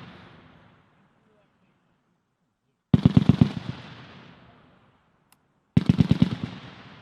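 M2 .50-calibre heavy machine gun firing two short bursts of about seven or eight rounds each, about three seconds apart, each burst followed by a rolling echo that fades over about a second.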